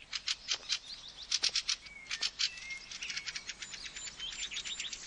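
Fieldfare alarm call: a fast run of harsh, chattering notes, coming thicker toward the end, the bird's warning that a raven is near the nests. A few thin whistled notes sound briefly about two seconds in.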